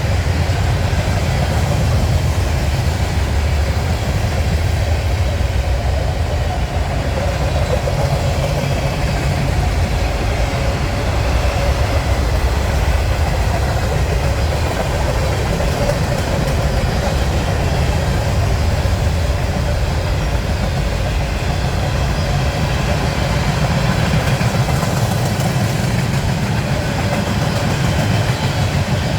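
Norfolk Southern mixed freight train rolling past close by, a continuous heavy wheel-on-rail noise from the passing railcars that holds steady.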